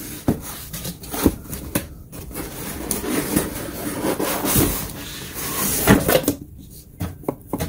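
Cardboard box being handled: its flaps rub and scrape against a fabric tool case as the case comes out, with a few sharp knocks among the rustling.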